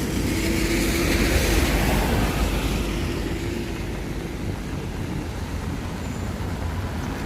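A vehicle passing on a wet road: tyre hiss and a faint engine hum swell and fade over the first three seconds, over a steady low traffic rumble and rain.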